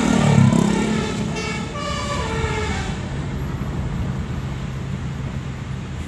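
Multi-tone telolet air horn on a tour bus: a loud blast near the start, then a string of short horn notes at changing pitches for about two seconds. A steady low engine drone carries on after the horn stops.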